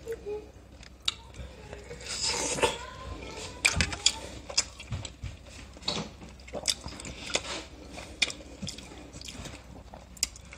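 Close-up eating sounds: biting and chewing corn on the cob, with scattered wet clicks and smacks and a denser crunchy stretch about two seconds in.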